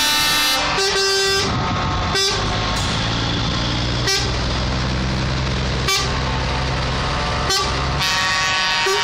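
Air horns of semi-truck tractor units honking as a convoy drives past, over the drone of their diesel engines. A long horn blast opens, a second shorter blast follows about a second in, then short toots come roughly every two seconds, and another long horn starts near the end.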